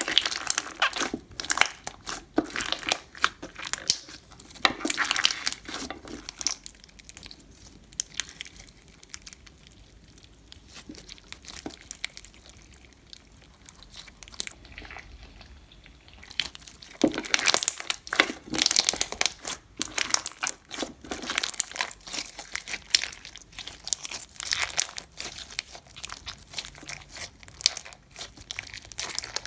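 Frog spawn slime, a clear slime full of beads, squeezed and worked by hand, giving dense crackling and clicking pops. The crackling is loud for the first several seconds, quieter through the middle, then loud again from a little past halfway.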